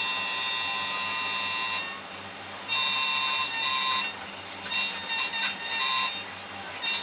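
Xhorse Dolphin XP005 key cutting machine cutting a new key, a high whine from its motor and cutter. The whine holds steady for about two seconds, drops away, then comes back in shorter on-and-off stretches as the cutter works along the blade.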